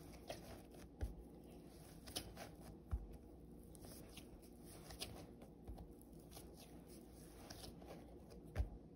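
Kitchen handling sounds: scattered light ticks and taps with a little rustling, and three heavier thumps, about a second in, three seconds in and near the end, over a low steady hum.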